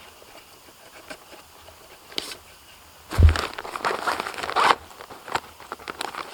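Snow crunching under movement, with a heavy thump about three seconds in followed by a run of crunching and rustling, then scattered clicks.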